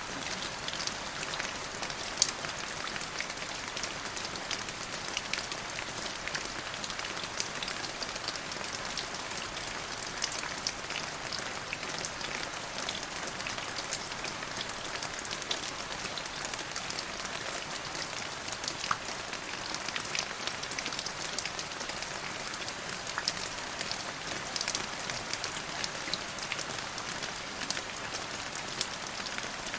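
Steady rain falling, a constant hiss dotted with many small ticks of individual drops striking a surface, with one sharper drop tick about two seconds in.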